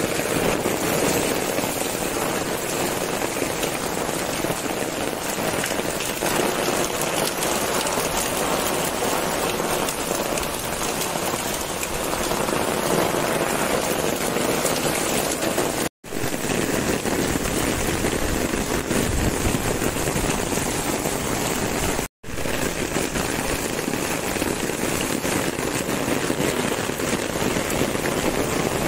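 Heavy monsoon rain pouring steadily onto a concrete rooftop terrace, a dense, even hiss of drops. The sound drops out for an instant twice, about 16 and 22 seconds in.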